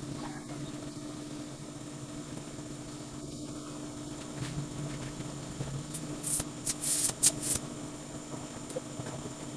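Bicycle tire being worked onto its rim by hand, with several short, high scraping hisses of the rubber against the rim about six to seven and a half seconds in. A steady low machine hum runs underneath.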